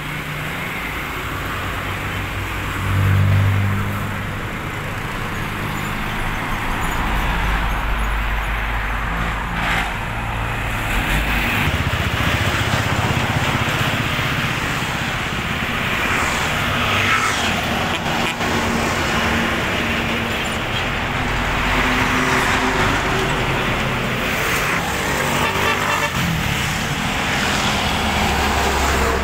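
Highway traffic passing close by: heavy trucks, vans, jeepneys, motorcycles and motorcycle tricycles, with engines running and tyre noise. One vehicle passing about three seconds in is the loudest.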